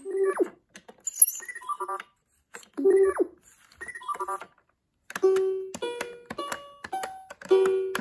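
Fisher-Price Laugh and Learn activity table's electronic speaker playing short sound effects as its plastic mouse button is pressed repeatedly, with the clicks of the buttons. The effects include sliding tones. They stop and restart every second or so. In the second half come held notes and a run of short notes.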